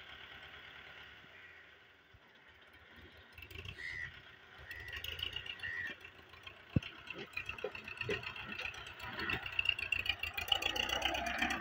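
Tractor engine running as the front-loader bucket pushes a pile of soil, with clanks and rattles from the loader. The tractor gets louder towards the end as it comes closer. Three short high chirps sound in the middle.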